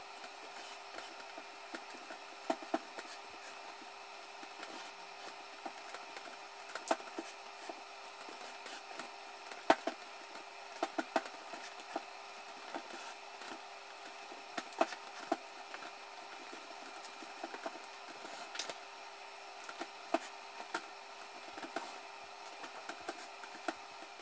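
Woven seagrass basket and lid crackling and creaking in irregular clicks as hands lace a cord through the rim, over a steady hum.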